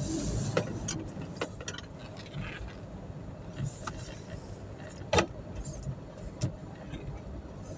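Car running with a steady low rumble, with scattered clicks and knocks, the sharpest about five seconds in.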